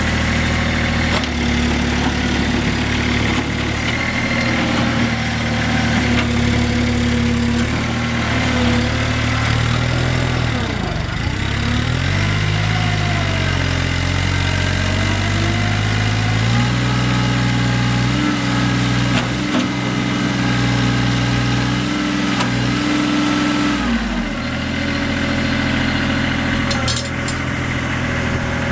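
Kubota B21 tractor-loader-backhoe's three-cylinder diesel engine running at a steady idle. About ten seconds in, its speed dips and swings. It then runs at a higher speed for about seven seconds before dropping back to idle.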